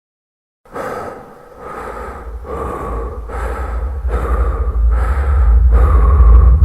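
Quick, heavy human breathing, one breath about every 0.8 s, starting under a second in over a deep rumble that swells steadily louder.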